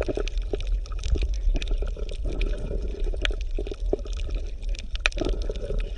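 Water bubbling and gurgling, with many small irregular clicks over a steady low rumble.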